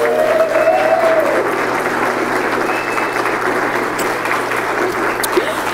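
Wedding guests clapping: steady applause from a seated crowd.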